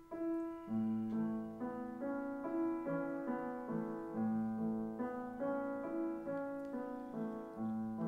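Slow instrumental film score: a piano playing a gentle melody of held notes, changing step by step.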